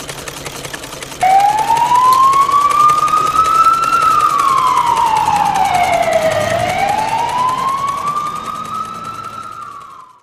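Emergency-vehicle siren in a slow wail: it starts abruptly about a second in, rises, falls and rises again over several seconds, then fades out near the end.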